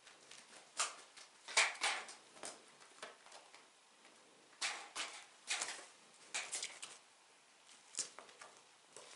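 Scattered short rustles and clicks from cats nosing and pawing at light plastic plates and foil cat-food pouches on a carpet, coming in small clusters with quiet gaps between.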